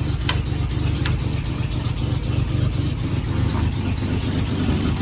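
Plymouth P15's flathead inline-six engine idling steadily while still cold, shortly after starting.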